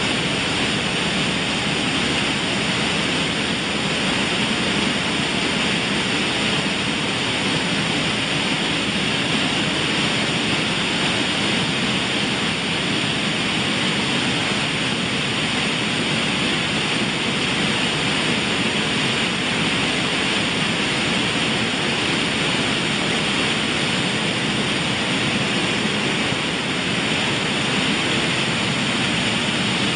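Buckwheat grading and shelling machine running, grain sliding and rattling across its sieve screens in a steady, even rush of noise.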